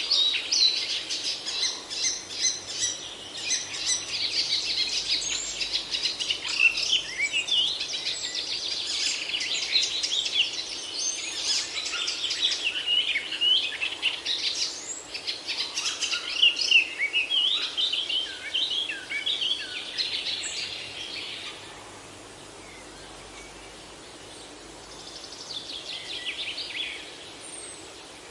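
Songbirds chirping and singing in quick, overlapping phrases over a steady hiss. The birdsong dies away about three-quarters of the way through, leaving the hiss, and a brief burst of chirping returns near the end.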